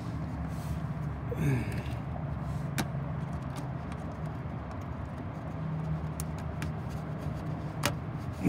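A steady low hum of a running motor, with a few sharp clicks and a short falling voice sound about one and a half seconds in.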